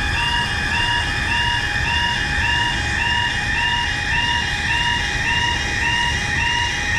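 Japanese railroad crossing's electronic warning bell ringing, about two dings a second in an even repeating pattern, over a steady low rumble.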